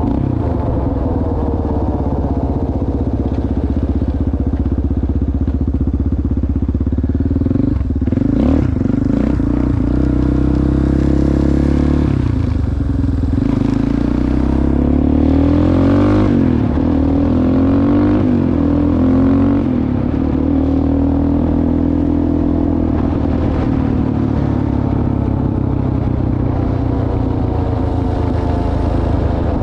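ATV engine running under way, its pitch rising and falling with the throttle, with a few knocks and clatter about eight seconds in.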